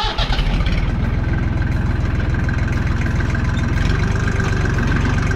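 Tractor engine running steadily close by, a fast even low beat with a thin steady whine over it.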